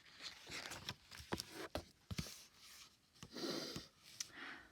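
Faint paper rustling and a few soft taps and clicks from a picture book being handled.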